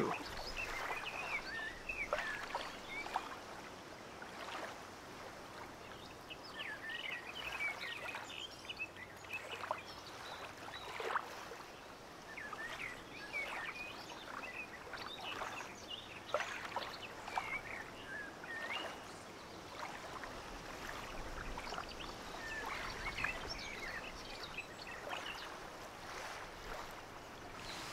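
Birds chirping in short, scattered calls over the steady rush of a flowing river and weir.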